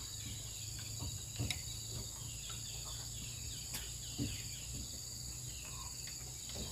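Steady high-pitched chorus of insects, with a low rumble underneath and a couple of faint knocks.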